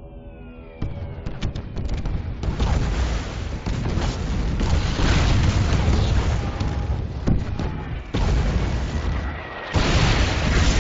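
Film sound of an air raid: a few descending whistles in the first second, then heavy explosions one after another with deep rumbling. A fresh loud blast comes near the end.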